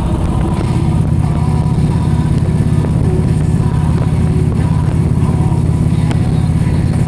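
A motor vehicle's engine running steadily, a continuous low drone.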